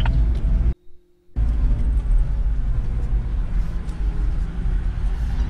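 Toyota LandCruiser 70 Series driving slowly on a dirt fire trail, a steady low rumble of engine and tyres heard from inside the cab. About a second in the sound cuts out almost completely for half a second, then the rumble carries on.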